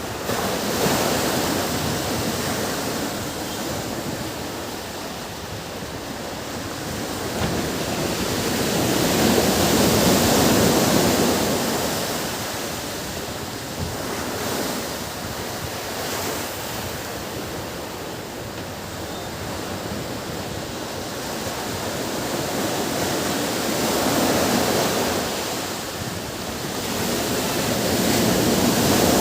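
Ocean waves breaking on a beach: continuous surf noise that swells and recedes in slow surges every several seconds, with some wind.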